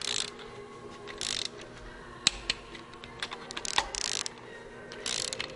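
Torque wrench ratcheting in short bursts, with a few sharp single clicks between, as the rocker housing capscrews on a Cummins ISL diesel head are run down and torqued.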